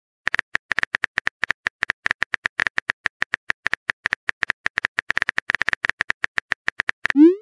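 Phone keyboard typing sound effect: a quick, even run of short clicks, about eight a second, as messages are typed letter by letter in a chat app. Near the end a short rising whoosh, the message-send sound.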